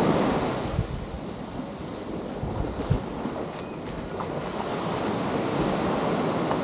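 Ocean waves washing up onto the beach, the surge loudest at the start and easing off, with wind buffeting the microphone. A couple of short low knocks about one and three seconds in.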